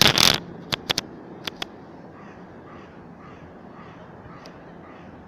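A loud knock right at the start and a few sharp clicks, then faint repeated bird calls, about two a second, over a low steady hum.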